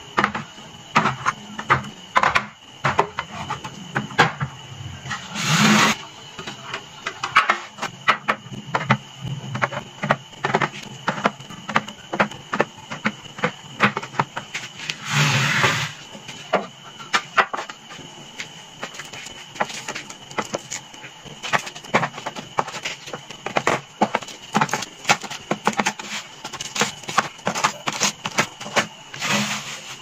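Small plastic soda bottles and cardboard juice boxes being set down and pushed into clear plastic organizer bins: a steady run of light knocks, clacks and taps. There are two longer, noisier scrapes about six and fifteen seconds in, and a faint steady high tone runs underneath.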